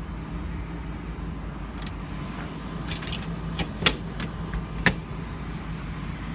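Steady low hum of the truck's V10 gas engine, with a cluster of sharp metallic clicks and knocks a little past halfway; the two loudest are about a second apart.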